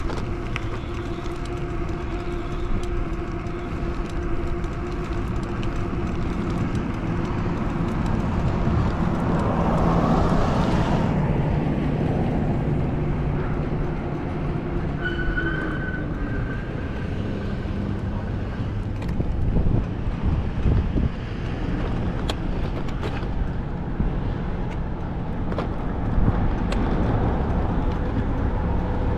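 Steady vehicle and road noise while riding, with several held engine-like tones. A louder rush of noise, like a vehicle passing close, comes about nine to eleven seconds in.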